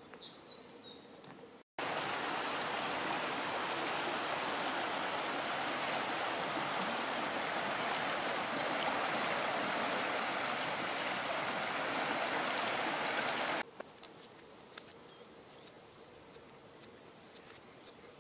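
Muddy flash-flood water in a Mediterranean stream (ribeira) running full and fast: a loud, even rushing of water that cuts in about two seconds in and cuts off suddenly well before the end. Before and after it there are only faint outdoor sounds, with a few small high chirps and ticks.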